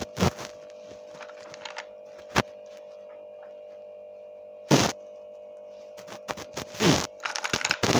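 Small plastic toys handled and set down on a table: scattered knocks and clicks, one loud knock about halfway through and a quick run of them near the end, over a steady hum.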